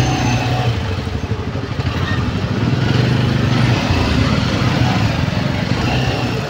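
Motorcycle and scooter engines running in slow, packed two-wheeler traffic, with a steady low engine note.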